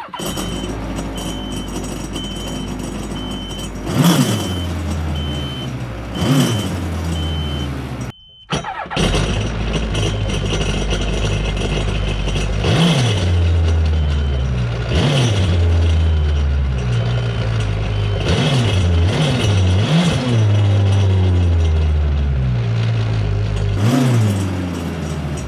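Kawasaki Ultra 250X jet ski's supercharged four-stroke engine running out of the water, starting up, idling and blipped up and back down about nine times, then shut off at the end: a short run to blow leftover water out of the cooling system before antifreeze goes in. A steady, evenly spaced high beeping sounds through the first third.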